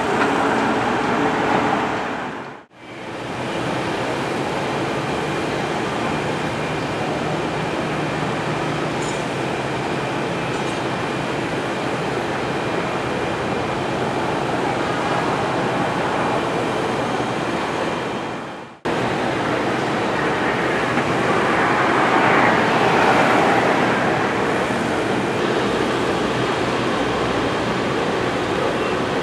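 Steady rushing background noise without any clear tone, broken by two sudden cuts and swelling briefly about three-quarters of the way through.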